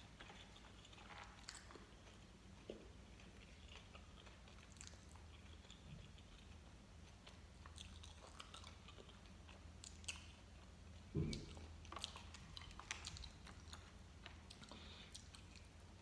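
Faint chewing of gummy candy, with soft mouth clicks, and a brief low thump about eleven seconds in.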